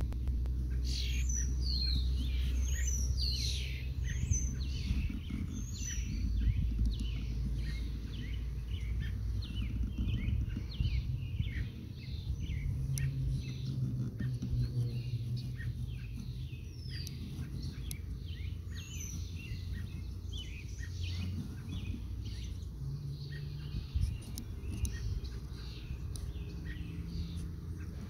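Several birds singing and chirping, many quick downward-sweeping notes overlapping, over a steady low rumble.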